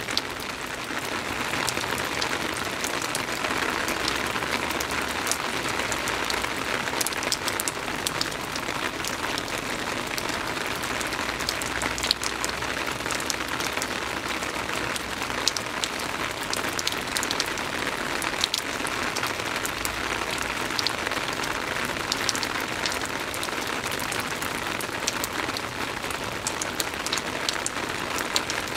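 Soft rain falling steadily, with individual drops ticking sharply here and there through the even hiss.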